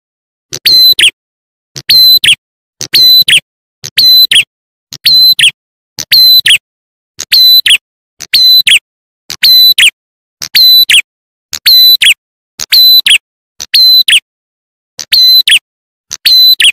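Prenjak atas (ciblek klawu) lure call: a small songbird's short, sharp two-part phrase repeated about once a second at a steady rhythm, each phrase a high note ending in a falling slur, with clean silence between phrases.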